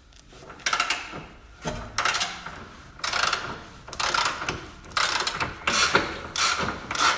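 A socket ratchet clicking in short strokes about once a second, the strokes coming closer together near the end, as the 21 mm nut on a front lower suspension arm's subframe bolt is undone.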